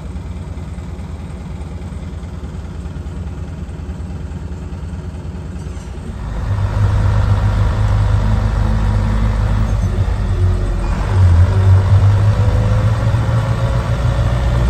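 Motor vehicle engine running steadily at low revs, then getting louder about six seconds in as the vehicle pulls away, a low drone with a faint slowly rising whine.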